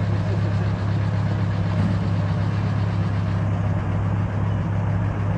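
Vintage Lincoln car engine idling, a steady low hum.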